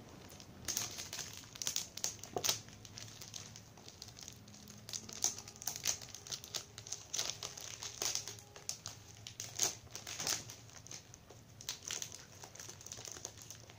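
Cardboard box and its packing tape being cut open with small scissors: irregular snips, crinkles and crackles of paperboard and tape.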